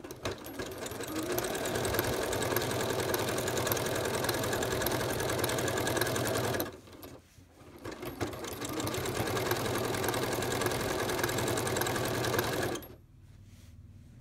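Janome computerized sewing machine stitching a zig-zag through quilt layers with a walking foot, the needle running at a steady, fast rhythm. It stops for about a second midway, runs again, and stops shortly before the end.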